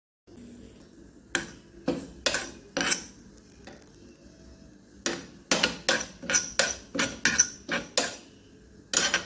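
A steel spoon stirring and scraping semolina roasting in a little ghee in a pan, knocking and clinking against the pan. There are a few separate strokes at first, then a pause, then a quicker run of about three strokes a second in the second half.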